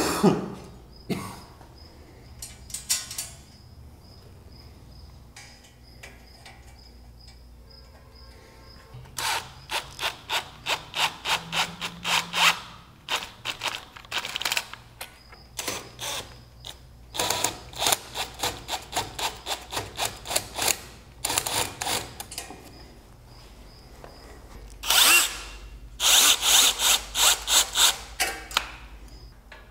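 Bolts being tightened on a steel grill guard with a cordless drill while a ratcheting wrench holds the nut. It comes as runs of quick, even clicks in several spells with short pauses between.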